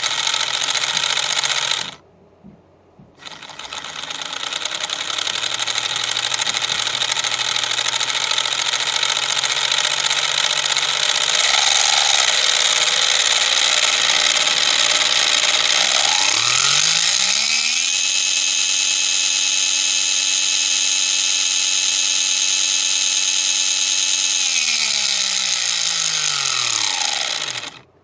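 3D-printed plastic transmission running under power with a loud gear whir. It stops briefly about two seconds in and starts again. About halfway through, a whine rises in pitch, holds steady, then falls away before the whole thing stops near the end.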